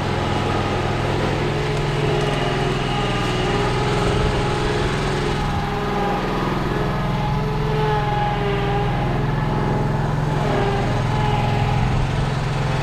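A small engine running steadily, with some wavering in its higher tones.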